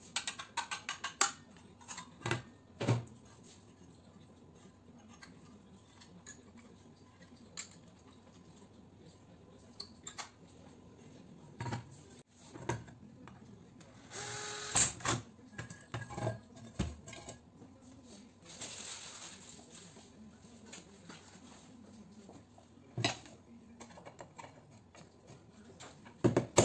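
Metal clinks and knocks as a metal light fixture is handled and taken apart. About halfway through, a cordless drill runs for a second or two against the fixture's metal, and then runs again briefly a few seconds later.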